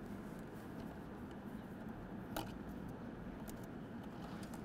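Light clicks from a plastic zip tie being worked around a wiring harness and controller module, with one sharper click about halfway through, over steady faint room hiss.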